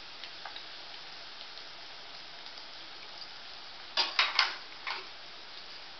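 Oil sizzling gently in a kadai under boiled potato pieces, cumin, green chillies and curry leaves: a low steady sizzle. About four seconds in comes a quick cluster of sharp clicks, and one more a second later.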